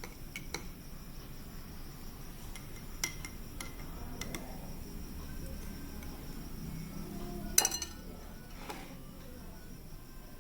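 Kitchen utensils clinking against dishes: a few scattered sharp clinks, the loudest about seven and a half seconds in, over a steady low background noise.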